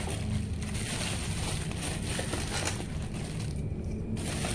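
Plastic packaging crinkling and rustling as small body parts are unwrapped and handled, with a short pause near the end before the rustling resumes.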